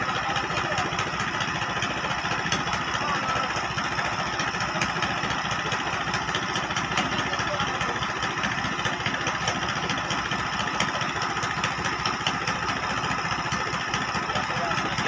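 A boat's engine running steadily, with a fast, even chugging.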